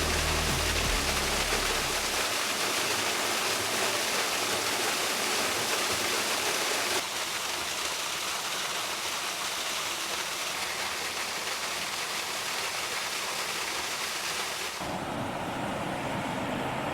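Waterfalls: the steady rushing hiss of falling water. The sound changes abruptly about seven seconds in, and again near the end, where it turns deeper and less hissy.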